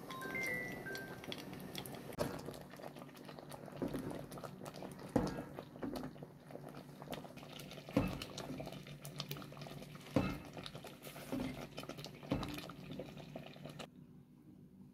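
Thick cocoyam pottage bubbling and crackling in a pot while it is stirred, with a wooden spoon knocking against the pot about seven times. It drops to quiet about a second before the end.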